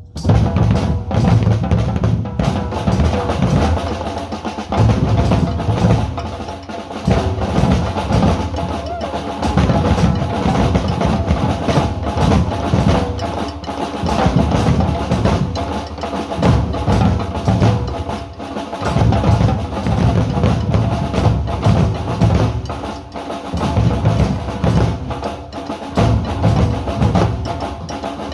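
A workshop group of drummers playing a rhythm together on bass drums and snare drums, loud and continuous, starting together right at the beginning.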